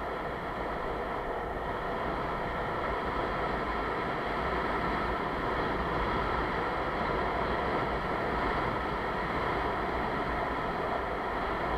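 Longboard wheels rolling fast over asphalt, a steady roar mixed with wind rushing over the microphone, a little louder around the middle.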